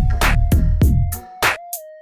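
Electronic background music with a steady beat: deep kick drums that slide down in pitch, sharp snare and hi-hat hits, and a held synth note.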